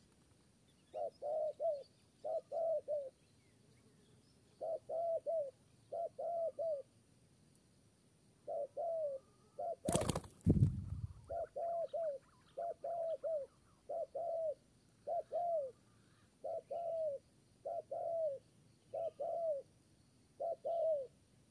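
Spotted dove cooing in short phrases of two or three notes, repeated about every second or so. About ten seconds in, one loud burst of wing flapping as a dove takes off.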